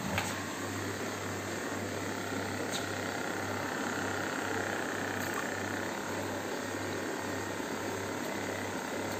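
Aquarium equipment running: a steady hiss with a low hum that pulses a little more than once a second.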